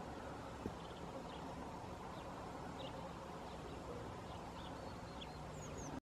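Small songbirds giving faint, short high chirps and call notes scattered through, with two short falling notes near the end, over a steady low background rumble. A single sharp click comes about half a second in.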